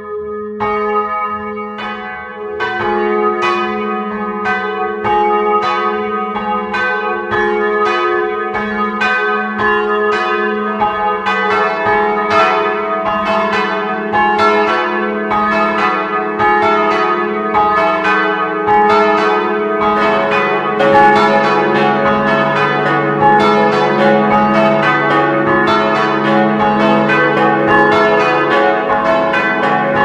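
A peal of swinging bronze church bells tuned C♯, E and F♯, with a smallest bell on A♭ added, striking over and over in a crossed falling order. The strikes grow denser and louder as more bells join, and a deeper bell comes in about two-thirds of the way through.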